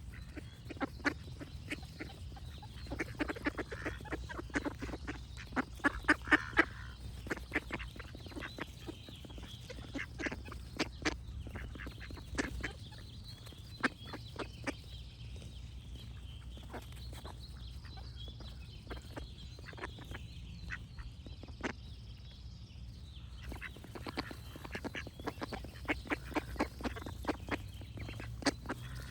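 Ducks quacking in quick runs of short quacks, busiest and loudest a few seconds in and again near the end, with birds singing faintly in the background.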